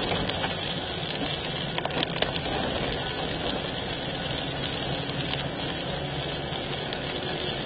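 Steady running noise of a car driving on a wet road, with engine and tyres heard from inside the cabin, and a few small ticks about two seconds in.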